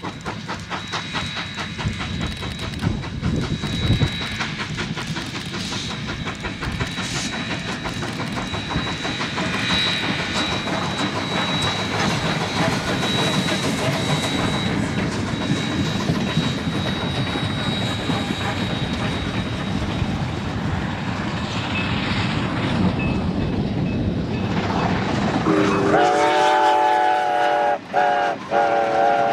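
Steam locomotive hauling passenger cars at speed: a fast, steady exhaust beat mixed with wheels clicking over the rail joints. About 25 seconds in, its steam whistle sounds a chord of several tones and holds it to the end, with a couple of brief breaks.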